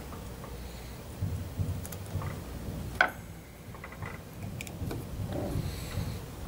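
Small metal parts being handled: a retaining plate settled onto a high-pressure vessel's cup seal assembly and a hex driver fitted into its screws, with low rubbing and scraping, a few light ticks, and one sharp metal click about three seconds in.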